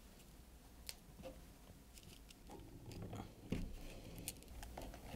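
Faint handling of a plastic grass-trimmer spool and its nylon cutting line as the line is fed through the trimmer head's outlet holes: a few light clicks, with soft rustling in the second half.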